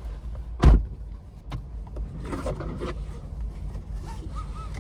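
Handling noise from a handheld phone: one loud knock a little under a second in, then scattered clicks and rubbing as it is moved about, over the steady low rumble of a car cabin.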